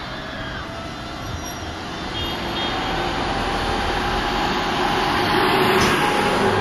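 Former Tokyu 7700 series electric train running slowly on the track, its motors and wheels growing gradually louder, with a faint steady whine over the rumble.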